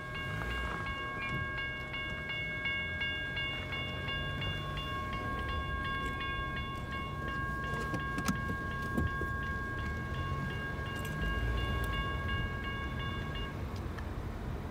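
Railroad crossing warning bell ringing continuously while the crossing signals flash, a steady high ringing tone that cuts off about thirteen seconds in. A low rumble runs underneath.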